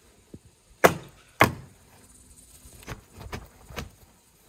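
Two sharp knocks about half a second apart, then a few lighter taps.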